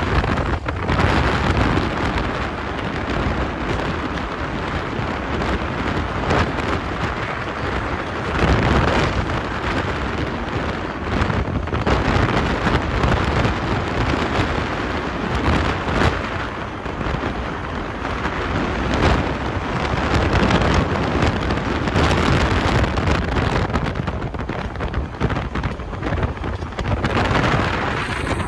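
Loud, continuous rumbling wind noise buffeting the microphone, rising and falling without any steady tone.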